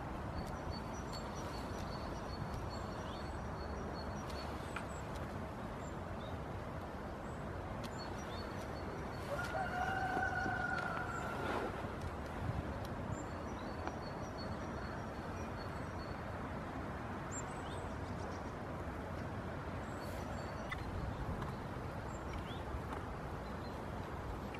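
Steady outdoor noise with faint high chirps, and about ten seconds in a single drawn-out call lasting about two seconds, level in pitch.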